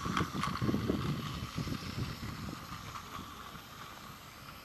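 Battery-powered Plarail toy train running past on plastic track, its small motor and wheels whirring and rattling, growing fainter as it moves away.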